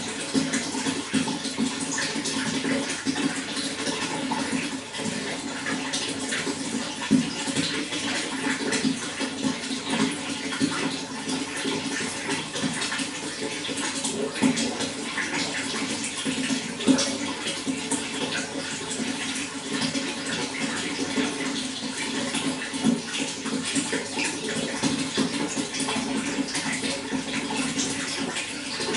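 Running water flowing and splashing steadily, with frequent small splashes standing out from the even rush.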